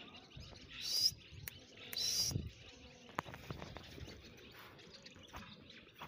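Two short, high-pitched bird chirps, about one and two seconds in, over a quiet outdoor background with a couple of faint clicks.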